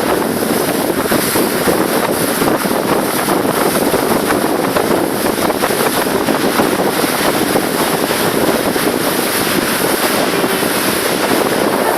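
A water taxi under way: a steady rush of wind on the microphone over the noise of the boat moving through the water.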